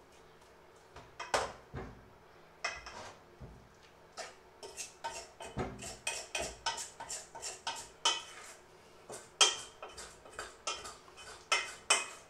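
A metal utensil clinking and scraping against a stainless-steel mixing bowl while mashing boiled potatoes: a run of sharp, uneven clinks, sparse at first, then two or three a second from about a third of the way in.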